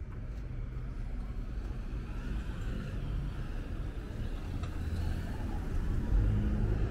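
Busy city street ambience: the low, steady rumble of road traffic, swelling louder near the end as a vehicle comes close.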